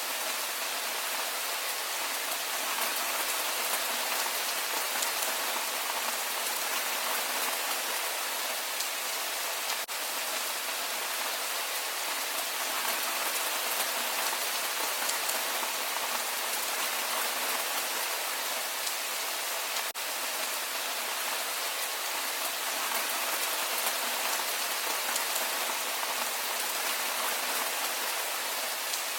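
Steady rain falling, an even hiss of many drops that keeps the same level throughout.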